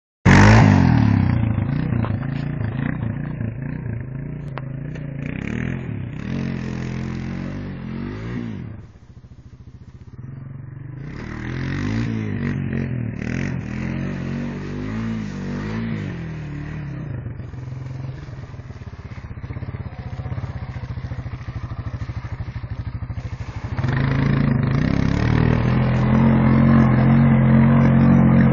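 Honda four-wheeler ATV engine running and revving, its pitch rising and falling with the throttle. It drops back for a couple of seconds about a third of the way in, then revs harder and louder near the end as the ATV churns through muddy water.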